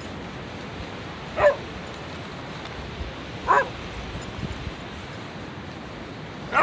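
A dog barking three times: short, sharp barks about two seconds apart, the last near the end.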